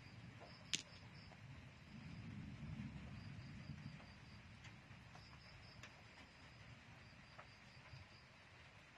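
Faint cricket chirping: a high, rapidly pulsing trill that comes in short runs every couple of seconds. A single sharp click sounds about a second in, and a soft low rumble rises briefly in the middle.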